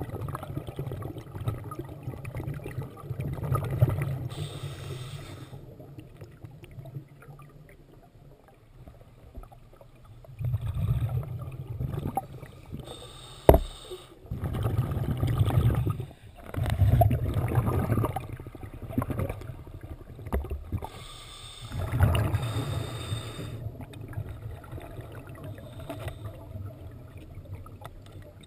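Scuba diver's breathing heard underwater: exhaled regulator bubbles rumbling out in about five bursts a few seconds apart, with one sharp click about halfway through.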